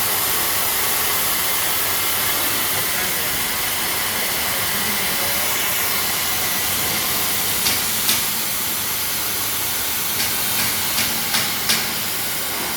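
CNC machine running in a machine shop: a steady hiss, with a run of about seven sharp clicks in the second half.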